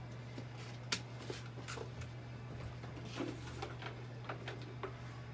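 Quiet room tone: a steady low hum with a few faint, scattered clicks and light handling noises.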